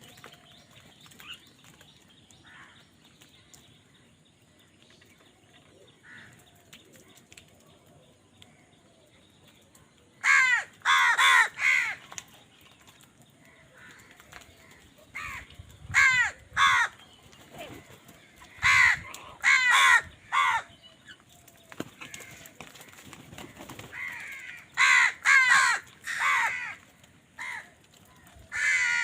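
Crows cawing: after about ten seconds of quiet, a loud harsh caw series breaks out in clusters of several quick caws, returning every few seconds.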